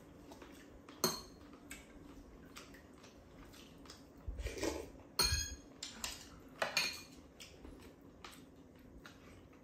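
Spoons and chopsticks clinking and scraping against ceramic bowls as two people eat, a scattering of separate clinks, the sharpest about a second in and again around five and seven seconds in.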